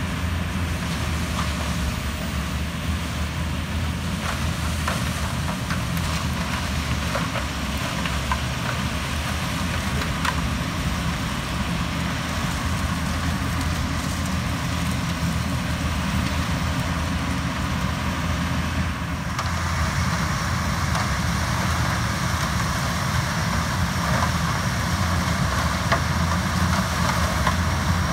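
Yanmar HS2000 sugarcane harvester's diesel engine running steadily, with scattered sharp cracks and snaps in the first third. About two-thirds through, the sound turns brighter and hissier.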